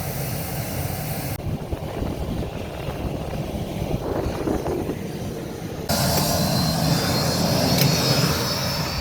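A nearby aircraft starting up, its engine running as a steady rush. The sound shifts abruptly twice, and in the last few seconds a high whine comes in.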